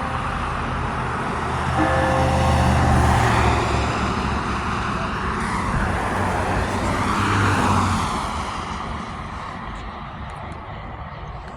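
Road traffic: a vehicle passing close by, its noise swelling and then fading after about eight seconds. A short, steady honk comes about two seconds in.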